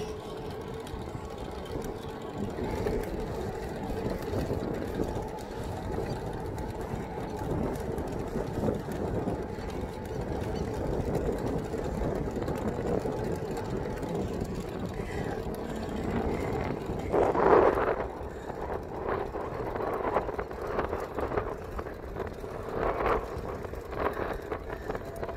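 Wind and road noise while riding a road bike on asphalt: a steady rushing noise, with a louder swell about two-thirds of the way through.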